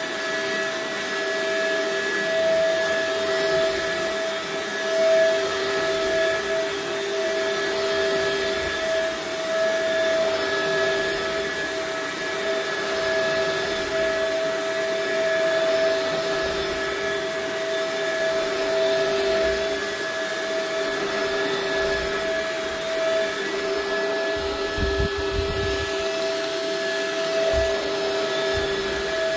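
Shark upright vacuum cleaner running steadily while vacuuming an area rug, its motor holding a constant pitch.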